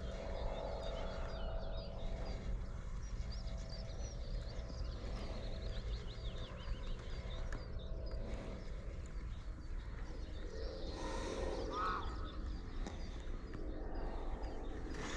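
Many small birds chirping and singing over a steady low rumble, with one louder, wavering bird call about eleven seconds in.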